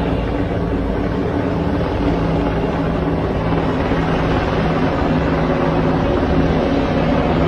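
Aircraft engine droning steadily, a constant low hum over a wash of noise.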